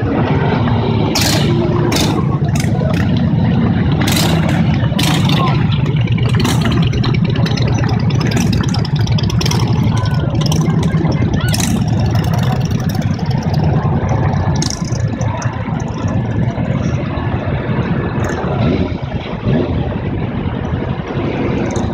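A procession of cruiser motorcycles riding slowly past, their engines running in a steady low rumble with short sharp noises over it, mostly in the first half, and crowd voices. The rumble eases a little after about fifteen seconds.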